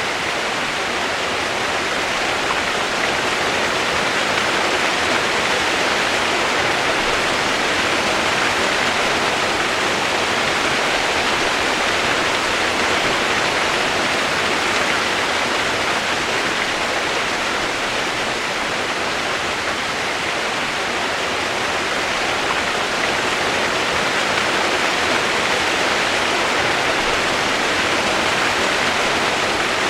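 Steady rushing water, an even hiss with no single splashes or drops standing out.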